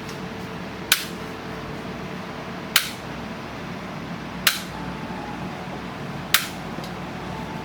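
Spring-loaded chiropractic adjusting instrument firing: four sharp clicks about two seconds apart, over a steady low hum.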